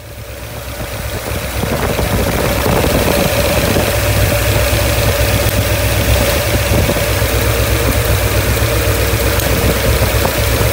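Carbureted V8 engine idling steadily. The sound fades in over the first couple of seconds.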